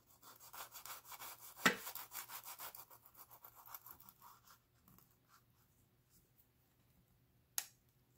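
Kitchen knife sawing through a crimped glutinous-rice-dough pastry on a wooden cutting board, a quick rasping scrape of blade on dough and board for about four seconds, with a sharp knock about a second and a half in. A single sharp tap of the knife near the end.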